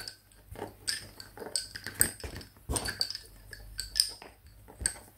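Lace bobbins knocking against one another as pairs are crossed and twisted in bobbin-lace work: an irregular run of light, sharp clicks, about two a second.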